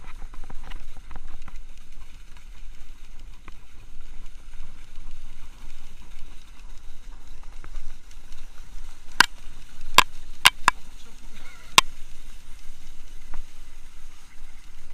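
Skis sliding and scraping over packed snow during a downhill run, with wind buffeting the camera's microphone as a constant low rumble. About nine seconds in come a handful of sharp clicks, four in quick succession and one more a second later, like skis or poles knocking together.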